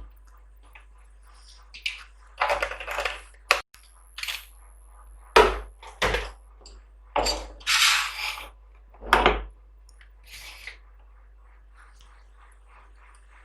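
Small metal parts and tools being handled on a work surface: a series of separate clicks, knocks and short scrapes, the sharpest a crack about three and a half seconds in.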